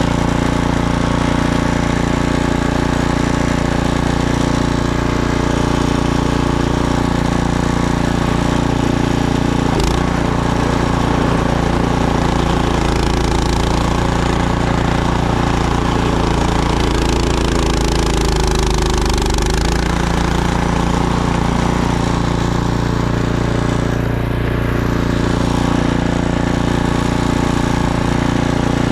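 Petrol snowblower engine running steadily at working speed, its pitch dipping briefly past the middle.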